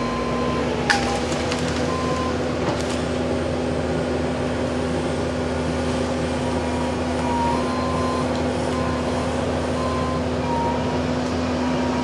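Bobcat T770 compact track loader's diesel engine running steadily under load as the tree-puller claw lifts an uprooted tree, with a sharp crack about a second in.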